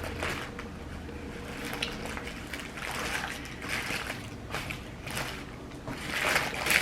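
Close mouth sounds of someone eating: wet chewing and smacking in short, soft spells, one every second or so.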